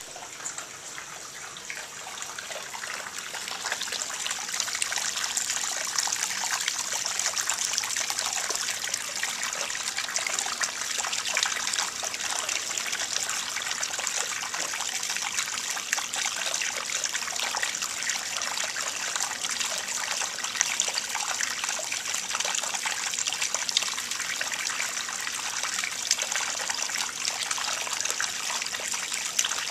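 Hot-spring mineral water trickling and splashing into a rock-lined outdoor bath, a steady watery patter that grows louder over the first few seconds.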